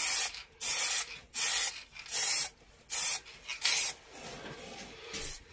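Aerosol can of black ebonizing lacquer sprayed in about six short, hissing spurts, each roughly half a second long; the spurts stop after about four seconds, leaving only a faint hiss.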